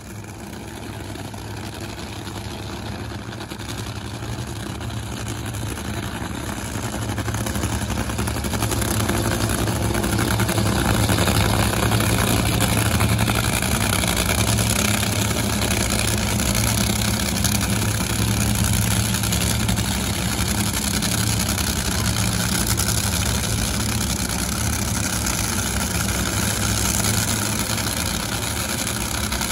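A drag-racing car's engine idling steadily, getting louder over the first ten seconds or so and then holding.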